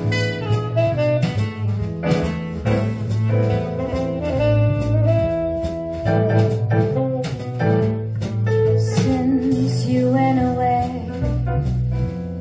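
Jazz: a saxophone plays a sustained melody over a deep bass line and drums.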